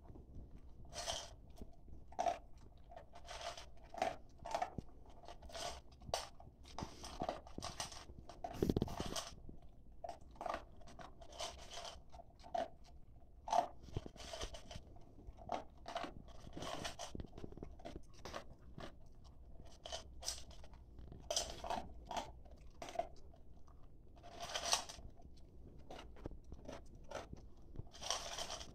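Staffordshire bull terrier eating dry kibble from a stainless steel bowl: irregular crunching and chewing, several bites a second, with a few louder crunches along the way.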